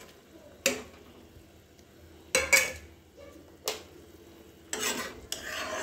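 A metal spoon stirring boiled eggs into simmering curry gravy in a metal kadhai. It knocks against the pan a few times, then scrapes around it for a longer stretch near the end.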